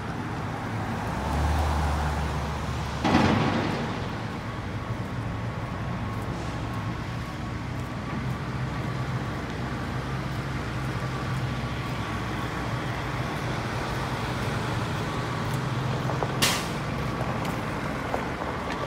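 Steady street traffic noise with a low engine hum, a heavy vehicle rumbling past and whooshing by about three seconds in. A brief sharp hiss-like burst stands out near the end.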